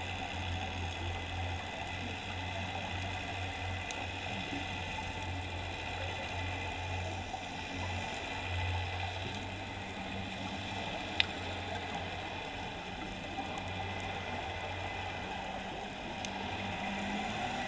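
Underwater ambience heard through a camera: a steady low hum under an even fizzing hiss, with one sharp click about eleven seconds in.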